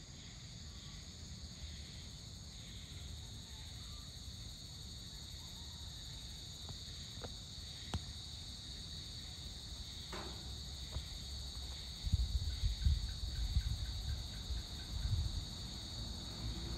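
Evening insect chorus: crickets trilling in a steady, high-pitched drone. Underneath is a low, uneven rumble that grows louder about twelve seconds in, with a faint run of short repeated chirps near the end.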